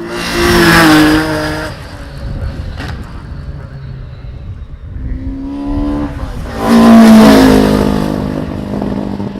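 Two racing cars driven hard past the listener, one about half a second in and a louder one near the seven-second mark. Each engine's pitch drops as the car goes by and fades away.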